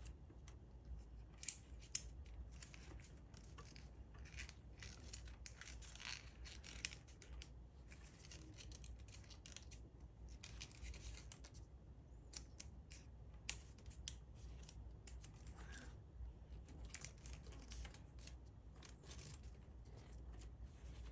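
Origami paper crinkling and rustling as hands fold and crease it: faint, irregular crackles with a few sharper snaps.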